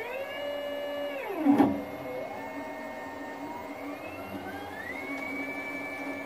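Stepper motors of a homemade CNC router driving the carriage along its ball screw: a whine that holds steady, drops as the axis slows with a short knock about a second and a half in, then rises again as it speeds up and holds steady.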